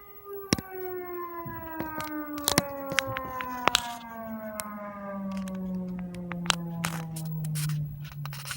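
Civil defense air raid siren winding down, its wail falling steadily in pitch as the rotor coasts to a stop. Sharp clicks are scattered throughout.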